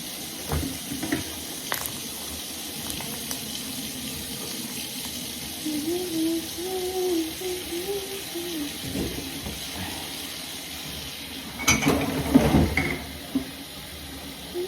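Tap running steadily into a sink, with a brief clatter of knocks about twelve seconds in.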